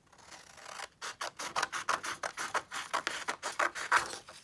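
Scissors cutting through a folded sheet of A4 paper, a quick run of crisp snips starting about a second in.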